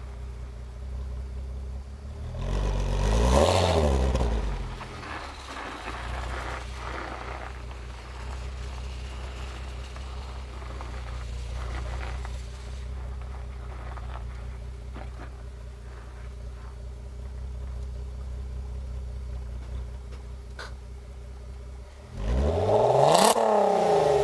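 Stock exhaust of a Volkswagen Golf R32's 3.2-litre VR6 heard close behind the car, running steadily at a low engine speed and revved up and back down twice, once a few seconds in and again near the end.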